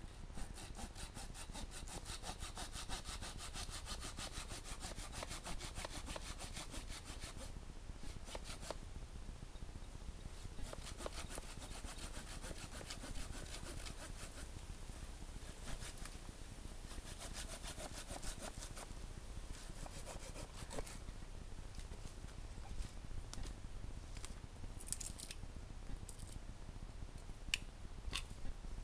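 Hand saw cutting through wood in quick back-and-forth strokes, in several runs with short pauses between them. After the sawing stops, a few sharp clicks near the end.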